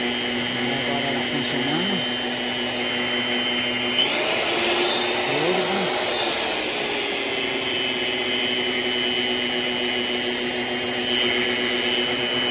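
Fun Kitchen planetary stand mixer's motor running with the beaters spinning, a steady whine. About four seconds in the pitch shifts and slides as the speed dial is turned, then settles onto a new steady pitch. The mixer is being test-run after a repair to its beater-release latch.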